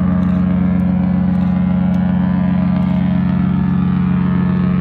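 The Harmony of the Seas cruise ship's horn sounding one long, steady, deep blast.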